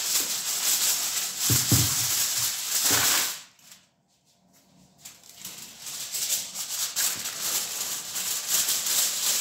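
Aluminium foil crinkling and rustling as sheets of it are spread and tucked over a baking tray, with a couple of dull knocks. The crinkling stops for about a second and a half a third of the way through, then starts again.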